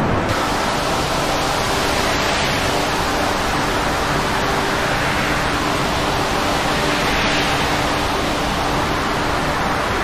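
Steady, loud rushing roar of storm wind and heavy sea, an even hiss with no single event standing out.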